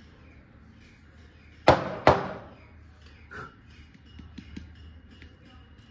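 Two sharp knocks about half a second apart, then a few faint taps, as a plastic bottle of carrom powder is handled and shaken over a wooden carrom board.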